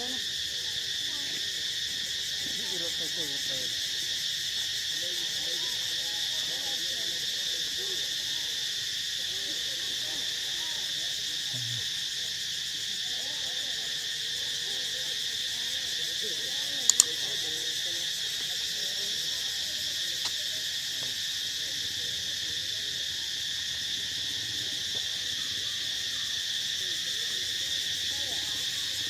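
Steady high-pitched drone of a forest insect chorus, with faint wavering calls underneath. Two sharp clicks a little past halfway.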